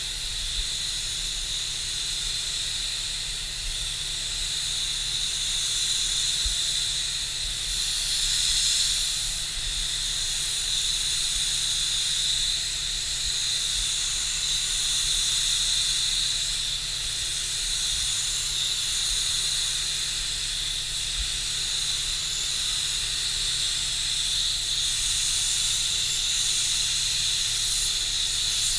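Gravity-feed spray gun hissing steadily as compressed air atomises clear coat, swelling and easing a little from pass to pass, over a steady low hum.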